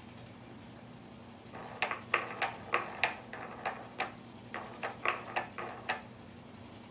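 Plastic spinning-ball toy on a baby walker's activity tray clicking as a baby turns it by hand: a run of sharp, irregular clicks, two to four a second, starting about two seconds in and lasting about four seconds.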